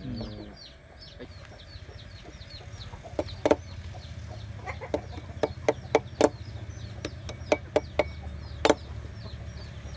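Sharp knocks of a broad knife blade chopping and shaving a small forked wooden stick against a log, coming irregularly and more often after about three seconds. Chickens cluck in the background, with a run of short high chirps.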